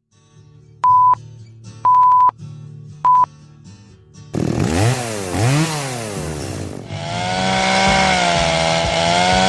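Three short film-countdown beeps, about a second apart, over faint music. Then, about four seconds in, a chainsaw revs up and down twice and settles into running steadily.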